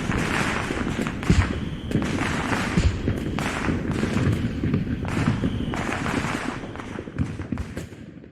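Fireworks sound effect: aerial shells bursting with low booms about every second under dense crackling, dying away near the end.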